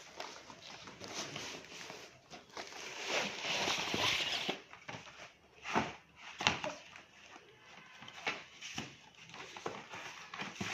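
Packaging being opened by hand: rustling and tearing, loudest about three to four and a half seconds in, followed by several sharp clicks and knocks of small pieces being handled.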